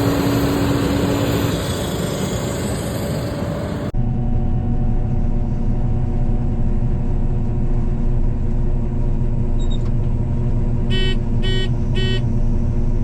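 Combine harvester running under load, a loud steady drone. About four seconds in, the sound cuts abruptly to a steadier, humming engine note. Near the end come three short electronic warning beeps in quick succession.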